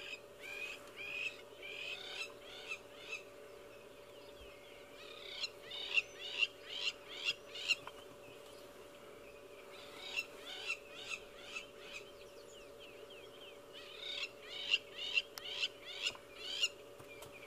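Crowned lapwings giving repeated high-pitched alarm calls, about three a second, in four bouts with short pauses between them, as when mobbing a raptor.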